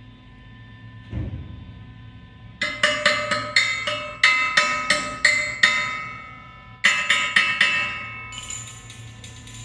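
Hammer striking steel in quick runs of ringing metallic blows, about three a second, with a short break partway through. A dull thump comes just after the first second.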